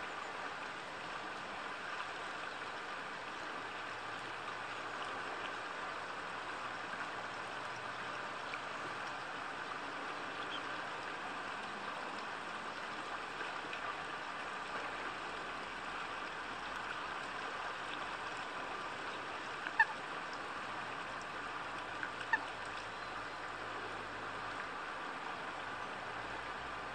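Eurasian coot giving two short, sharp calls a couple of seconds apart, about twenty seconds in, over a steady background hiss.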